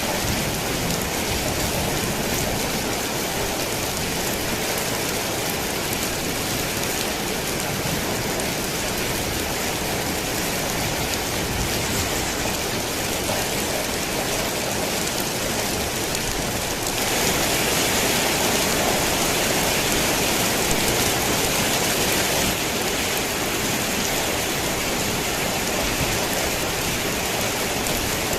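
Steady rain pattering on a thin tin roof. About two-thirds of the way through it turns suddenly louder and brighter for about five seconds, then drops back to the earlier level.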